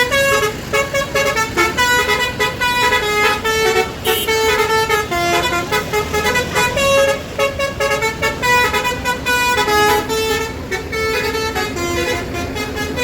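Multi-tone Basuri telolet bus horn playing a quick tune of short stepped notes, without a break.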